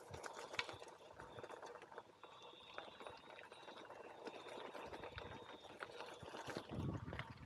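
Bicycle tyres rolling over a wet gravel track: a steady crackle of small stones and wet grit under the wheels, with a dull bump near the end.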